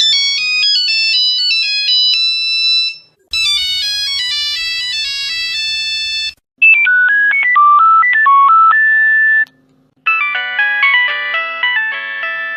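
Nokia mobile phone ringtones played one after another: four different short electronic melodies of about three seconds each, separated by brief silences. The third is the loudest.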